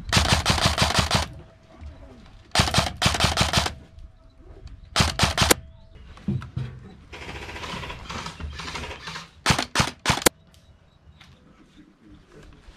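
Airsoft rifle firing on full auto in bursts: two loud bursts of about a second each, two short bursts around five seconds in, then a few quick sharp shots near the end.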